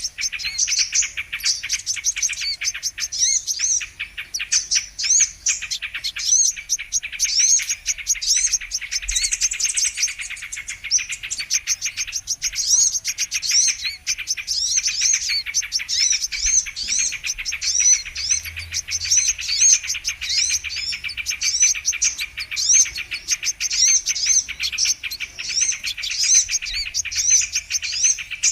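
Sunbird (kolibri kelapa) calling in a bird-lure recording: an unbroken stream of rapid, high twittering chirps, many short notes sweeping up and down in pitch every second.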